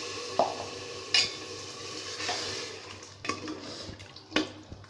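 A metal ladle stirring meat, onions and water in an aluminium pressure cooker, with a few sharp knocks of the ladle against the pot.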